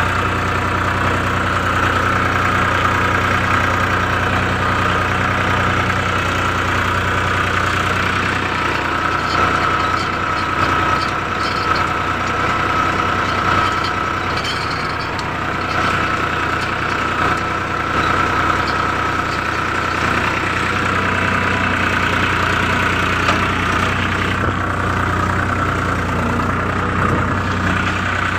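Powertrac Euro 50 tractor's diesel engine running steadily while pulling a tillage implement through a field, heard from the driver's seat.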